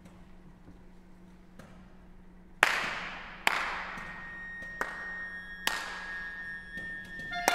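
A chamber ensemble playing sparse sharp percussive strikes in a contemporary piece with objects, about five of them, the first two ringing on for about a second. A thin high tone is held through the middle, and the loudest strike comes near the end as the ensemble comes in.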